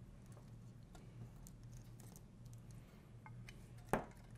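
Faint small ticks of a plastic pry tool and copper tape working at the metal thermal plate inside an iPod touch 4th generation, with one sharper click near the end as the plate comes free. A low steady hum runs underneath.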